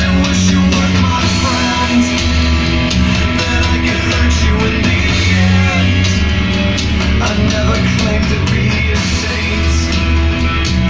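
Rock music with guitar and heavy, steady bass, played loud through an F&D 140X speaker during a sound test.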